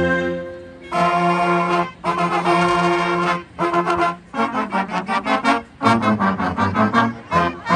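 Marching band playing: the brass section holds loud sustained chords in a couple of separate blasts from about a second in, then breaks into a run of short, punched notes.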